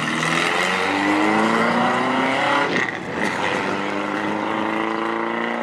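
Classic rally car accelerating hard out of a hairpin: the engine revs climb steadily, drop with a gear change about three seconds in, then climb again.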